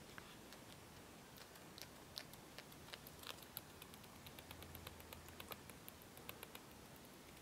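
Sleepy degus grinding their teeth: faint, quick, uneven clicking that grows denser about three seconds in.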